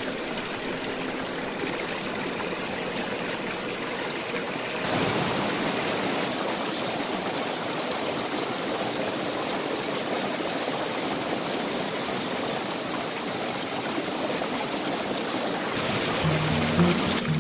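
Shallow mountain stream running over rocks, a steady rush of water that becomes louder and brighter about five seconds in. Music comes in near the end.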